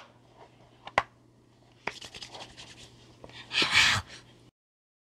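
Handling noise from fingers on the recording device: a few sharp taps, a quick run of scratching, then a louder rubbing rustle, after which the sound cuts off suddenly.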